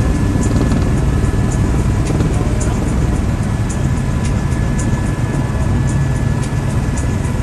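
Helicopter cabin noise in flight: a steady, loud low rumble from the engine and rotor, with a thin steady whine above it.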